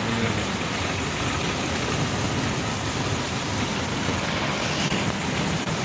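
Heavy rain falling in a storm, a steady, even rush of noise with no breaks.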